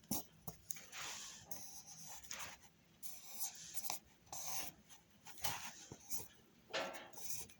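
A drawing tool scratching across paper in quick, uneven strokes of varying length.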